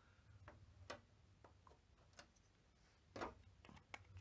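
Near silence broken by faint, scattered small clicks and light taps of hands and tools at work on a TV's LED backlight strip while solder flux goes onto the copper pads, a little louder about three seconds in.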